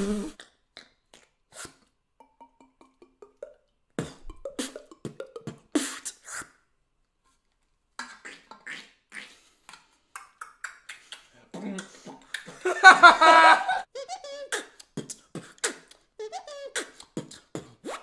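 Beatboxing: mouth clicks, pops and hissing hits in scattered short bursts with pauses between them. A little over two-thirds through comes the loudest part, a pitched vocal sound held for about a second.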